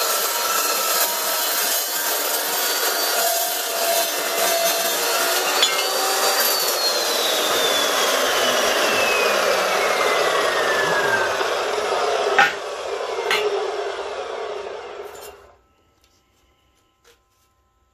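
Evolution S380CPS metal-cutting chop saw with a 15-inch blade cutting through steel square tubing: a loud, steady grinding and rasping of blade on steel. About six seconds in the cut finishes and the motor is let off, so the blade spins down with a whine that falls steadily in pitch. Two sharp clanks follow, and the sound fades out about four seconds from the end.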